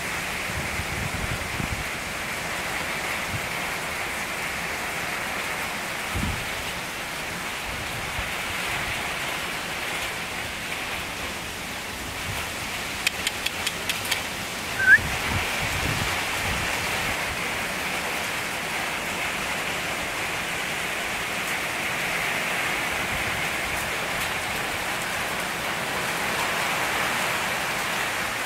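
Heavy storm rain pouring down steadily, a constant hiss of rain on the ground and trees. About halfway through there are a few quick clicks and one brief, high rising chirp.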